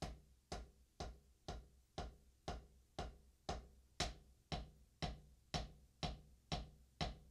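Drum sticks playing taps on a rubber practice pad: quiet, even strokes from alternating hands, about two a second.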